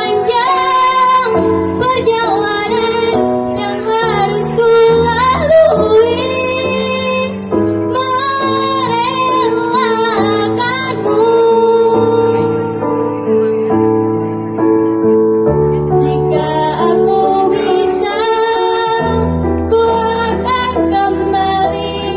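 A girl singing a slow Indonesian pop ballad solo into a microphone over instrumental accompaniment, amplified through the stage speakers.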